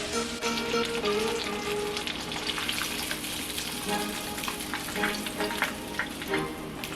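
Food sizzling and crackling in a frying pan, with faint background music.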